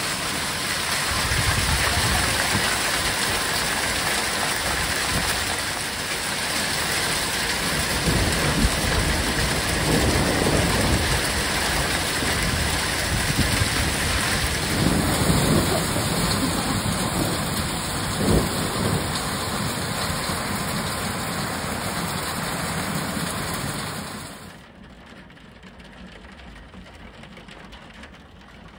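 Heavy rain mixed with hail pelting down in a thunderstorm, a dense steady hiss with low rumbles of thunder swelling under it. The sound falls away sharply near the end.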